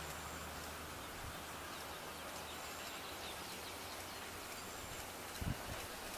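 Quiet outdoor ambience: a steady hiss with a few faint bird chirps. A short low thump comes about five and a half seconds in.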